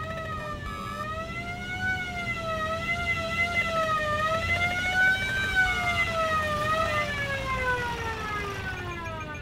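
Emergency vehicle siren wailing, its pitch sliding slowly up and down, over a low rumble. Near the end the pitch falls steadily and the siren fades.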